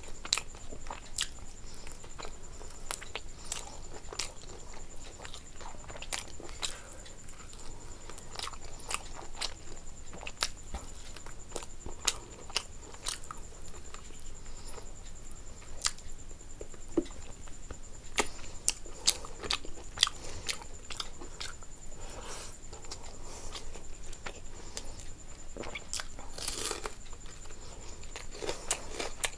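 Close-up chewing and biting of food, with frequent irregular crunchy clicks.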